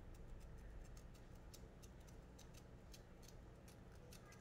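Near silence: room tone with faint, irregular small ticks and clicks.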